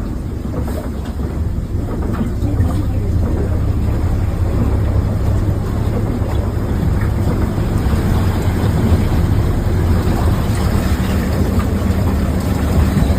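Bus engine rumbling steadily, heard from inside the cabin, under a continuous wash of road and water noise as it drives through heavy rain. The sound grows a little louder about two seconds in.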